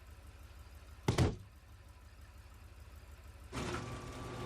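A car engine idling with a low, steady rumble; the car is a 1970 Dodge Challenger just brought back to running. About a second in there is a single loud thunk, and a louder noisy rush begins near the end.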